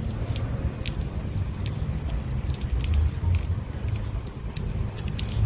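A car's steady low road rumble, with light clicks and rattles scattered through it.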